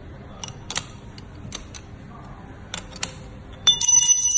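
Light metallic clicks of a 15 mm open-end wrench on a bicycle pedal spindle and crank arm as the pedal is tightened, several ticks in quick pairs. About three and a half seconds in comes a much louder metal clang that keeps ringing.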